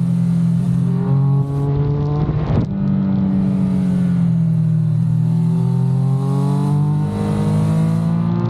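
Triumph Speed Triple 1200 RS's inline three-cylinder engine pulling hard through curves, its pitch dropping and rising with the throttle. About two and a half seconds in there is a short break with a rapid crackle, after which the engine note climbs steadily for several seconds under acceleration, with wind rush over the mounted camera.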